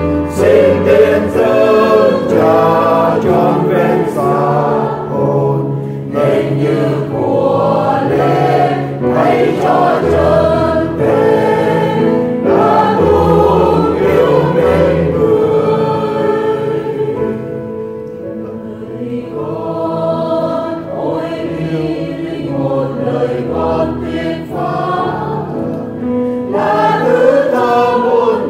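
A Vietnamese Catholic offertory hymn sung by a choir over sustained low bass notes, softening for a while around the middle.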